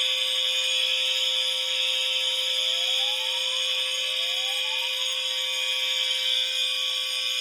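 Fire alarm horns sounding together on a continuous steady signal: a shrill high horn tone over a lower steady hum-like tone. Around the middle, a rising tone sweeps upward twice.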